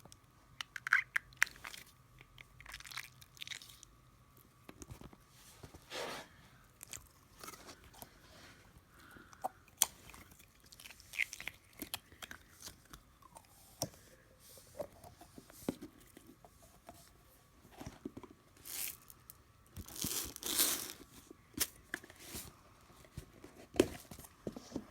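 Crunchy slime being squished, giving irregular crackles and pops, with a louder run of crackling about twenty seconds in.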